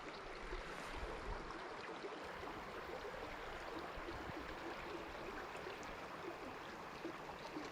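Mountain creek running: a steady, even rush of flowing water.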